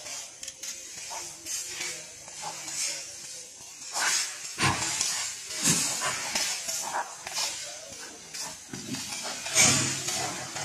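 A pickup basketball game on a dirt court: scuffing, shuffling footsteps and a few dull thuds of play, the loudest thud near the end.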